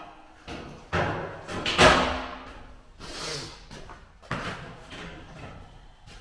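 A series of heavy bangs and knocks, about one a second, the loudest about two seconds in and ringing briefly, with a short hissing rush around three seconds in.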